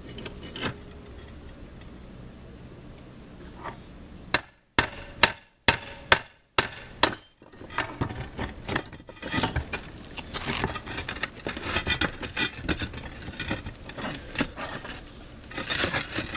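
Hand tools working concrete roof tiles loose: a quick run of sharp knocks about four seconds in, then steady scraping and grating of concrete tile and grit, with small clicks.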